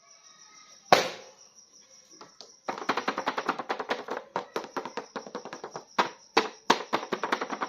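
A sharp knock, then a fast run of small clicks and taps with a few louder knocks among them, over a faint steady high whine.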